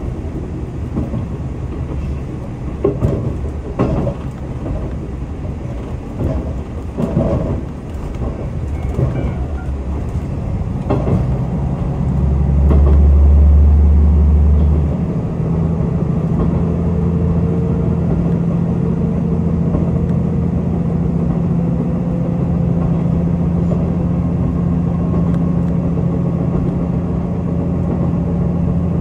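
KiHa 185 series diesel railcar heard from on board, running along with a few knocks over the first ten seconds or so. About halfway through, a heavy low hum swells for a few seconds and then settles into a steady, even engine drone.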